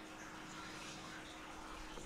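Faint room tone: a steady hiss with a low, steady hum underneath.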